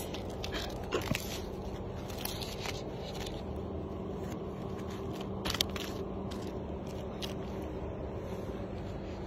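Silver duct tape crackling as it is torn, pressed onto a sandal sole and snipped with scissors: scattered sharp crackles and snips, the loudest about five and a half seconds in, over a steady low hum.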